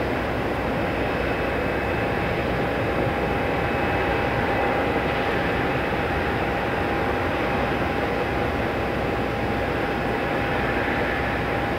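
Twin turbofan engines of a narrow-body airliner running as it taxis away: a steady rushing noise with a steady whine.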